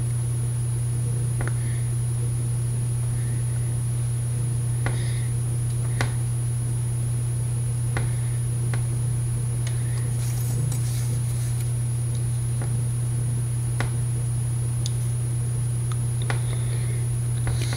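Steady low hum throughout, with sparse small clicks and faint scratches from small hand tools working on a harmonica's reeds and reed plate.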